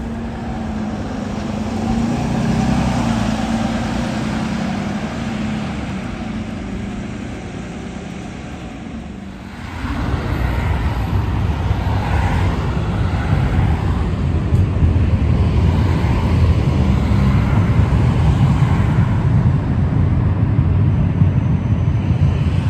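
A Siemens Combino tram runs past with a steady electric hum and rolling noise. About ten seconds in the sound changes suddenly to louder road traffic, with cars driving past close by and a tram on the bridge.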